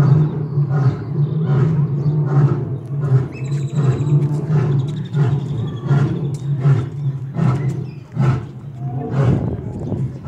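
Male lion roaring in a long bout of repeated deep calls, about two a second, over a steady low hum.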